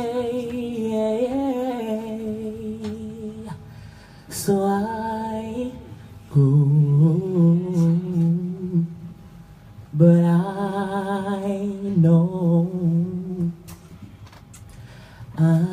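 A male singer singing long, wordless, held notes with vibrato through a microphone, in several phrases separated by short pauses, with little audible accompaniment.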